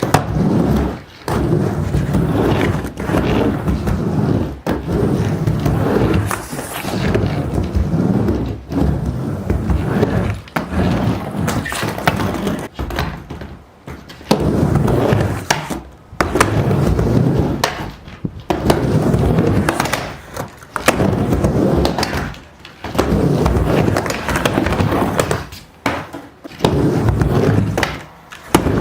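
Skateboard wheels rolling back and forth across a mini ramp, the rumble swelling and fading about every two seconds, with sharp clacks of the board at the turns.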